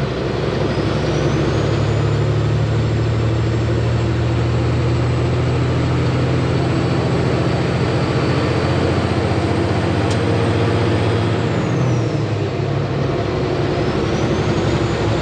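Straight-piped Kenworth semi truck's diesel engine pulling a loaded grain trailer, heard from inside the cab: a steady drone whose note changes briefly about twelve seconds in.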